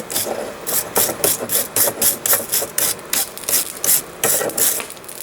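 Wire brush scrubbing forge scale off hot steel in quick, rhythmic scraping strokes, about three a second.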